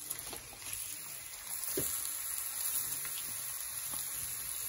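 Sliced onions sizzling as they drop into hot oil in an aluminium pot, a steady hiss with a few light clicks as handfuls land.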